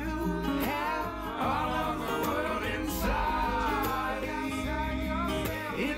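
Background music: a country-folk song, with a voice singing a melody over guitar, bass and a steady beat.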